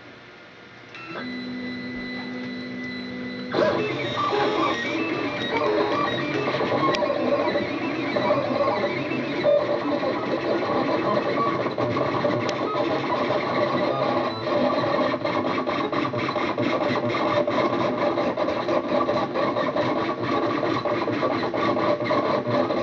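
Stepper motors of a homemade RepStrap 3D printer running fast moves. A steady whine starts about a second in, then about three and a half seconds in it turns into a louder, busy run of shifting tones and quick ticks as the axes change speed and direction.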